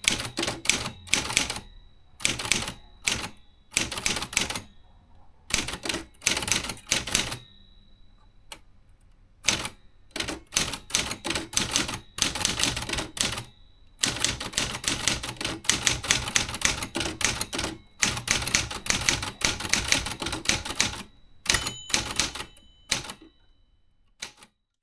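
Remington Quiet-Riter Eleven manual typewriter being typed on in quick runs of key strikes, broken by short pauses. The typing stops just before the end.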